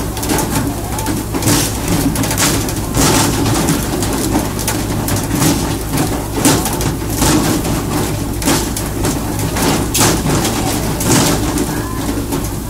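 Fishing boat's engine running steadily under the rush of sea water along the hull, with frequent sharp splashes and slaps as tuna are jerked from the water and swung aboard on poles.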